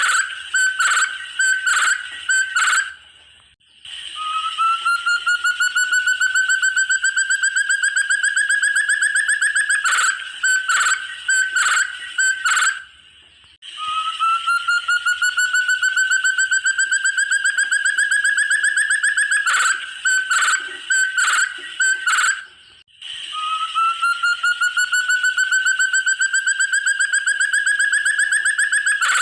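Call of a forest partridge (burung terung, puyuh hutan): a long, rapid trill of whistled notes rising slowly in pitch for several seconds, then about five separate loud notes. The phrase is repeated three times with short pauses.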